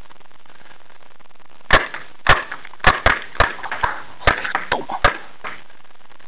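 Paintball fire: a quick, irregular string of about eight sharp cracks with fainter ticks between, lasting about three seconds from just under two seconds in.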